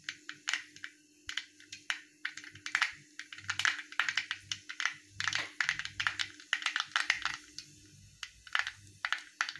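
Mustard seeds spluttering in hot oil, with irregular sharp pops and crackles. A faint steady hum runs beneath them and stops about eight seconds in.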